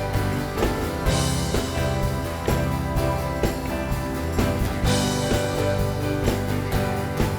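Worship band playing an instrumental passage between sung lines: guitars and bass over a steady drum beat, with a cymbal crash about a second in and another around five seconds.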